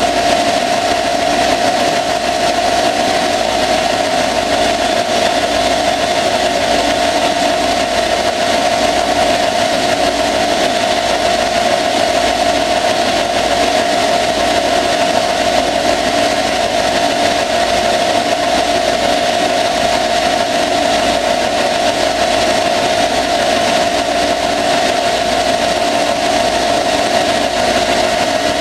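Small Arduino-controlled CNC lathe turning a steel axle under flood coolant: a steady high whine from the running machine over a constant hiss of cutting and coolant spray.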